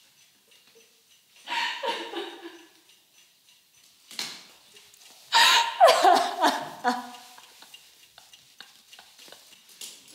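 Women sobbing and crying in grief, in two bouts: one about a second and a half in and a longer one just past the middle, with cries that break and fall in pitch.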